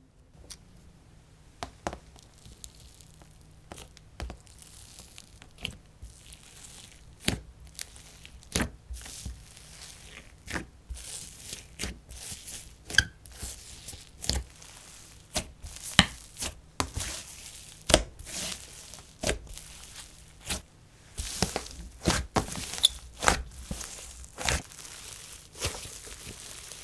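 Wet, icy slime being mixed by hand with a soft clay piece, giving irregular sticky clicks and pops that come much more often from about ten seconds in, as the fingers poke into it and stretch it apart.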